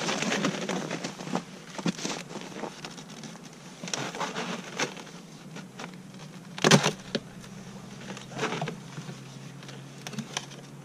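Footsteps crunching in snow and handling noises around plastic-foam beehives: irregular short crunches and scrapes, with one sharper knock about two-thirds of the way through. A faint steady low hum runs underneath.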